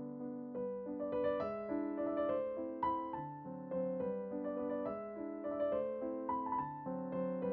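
Background piano music, a melody of several notes a second over chords.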